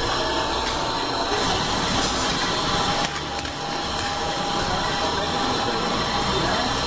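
Steady roaring hiss of commercial kitchen background noise, with a few faint scrapes of a metal ladle in a steel frying pan as the sauce is served out.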